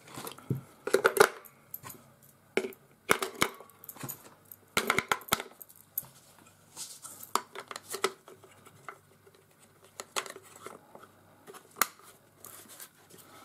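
AA batteries being pressed one by one into the plastic battery compartment of a portable radio: irregular clicks and knocks of the cells against the metal spring contacts and casing, with the radio being handled. The clicks are denser in the first half and sparser later.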